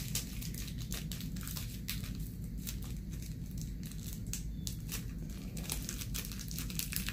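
Small clear plastic bag of diamond-painting drills crinkling and crackling irregularly as fingers handle and fold it.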